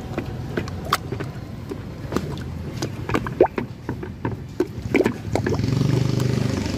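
A wooden stick stirring a flour-and-water slurry in a plastic basin: liquid sloshing with irregular knocks of the stick against the basin. About five and a half seconds in, a steady engine hum comes in.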